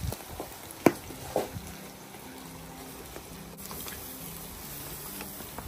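Barbecue-sauced pork ribs sizzling on a hot grill grate, with a sharp clack of metal tongs against the grate about a second in and a lighter one just after.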